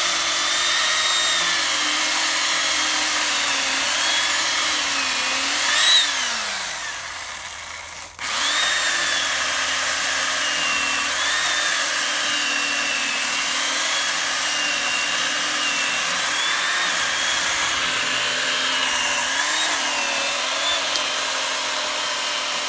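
Corded electric chainsaw running as it cuts into a tree trunk, its motor whine wavering in pitch under the load. About six seconds in it revs up, winds down over two seconds and stops for a moment, then starts again sharply and keeps cutting.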